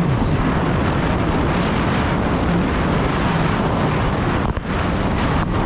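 Kawasaki Ultra 310 jet ski's supercharged four-cylinder engine running at speed through ocean chop, its drone half buried under heavy wind noise on the microphone. The level dips briefly about four and a half seconds in.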